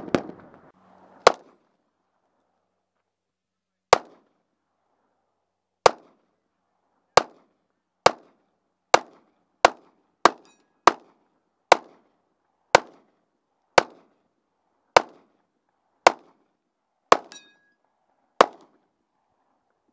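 Gunshots at a target range: a string of about seventeen single shots, widely spaced at first, then coming roughly once a second.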